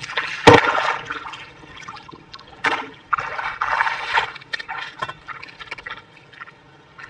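Muddy water in a small hole being splashed and sloshed by hand, with a sharp slap about half a second in and a second spell of splashing around three to four seconds in, dying away near the end.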